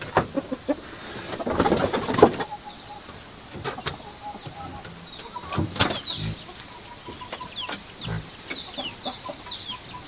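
Hens clucking around a nest box while eggs are gathered by hand: straw rustles and eggs click against each other and the woven plastic basket, with a run of short, high chirps in the second half.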